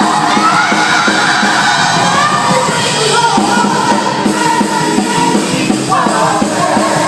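Gospel group performing live: a lead singer carries the melody over a band with a steady beat, with shouts from the group or congregation mixed in.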